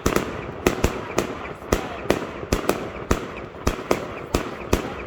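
Fireworks display: a rapid, uneven string of sharp bangs, about three a second.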